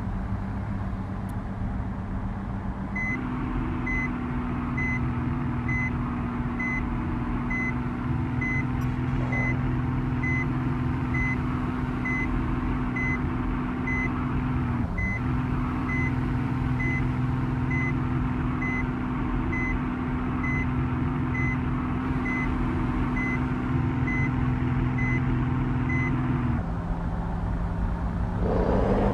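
Heavy truck's diesel engine running with a reversing alarm beeping evenly, about two beeps a second. The engine note rises as the beeping starts a few seconds in, dips briefly about halfway, and falls back when the beeping stops near the end. A short hiss follows just before the end.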